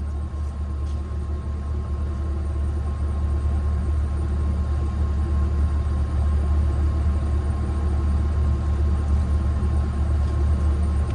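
Cat 306 excavator's diesel engine idling steadily: a low hum with a faint thin whine above it, growing slowly louder.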